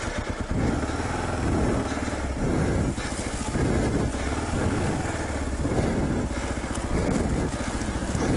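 Dual-sport motorcycle engine running steadily while the bike is ridden over a rough, rocky dirt trail, with uneven surges in the engine note.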